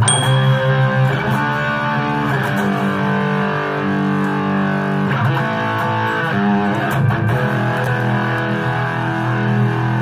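Distorted electric guitar playing over a backing track, heard through PreSonus Eris 3.5 studio monitor speakers.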